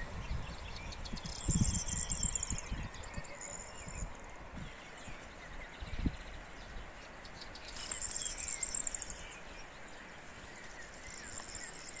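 Small songbirds singing: fast, high trills about a second and a half in and again near eight seconds, with scattered chirps between. Low rumbling gusts of wind on the microphone run underneath.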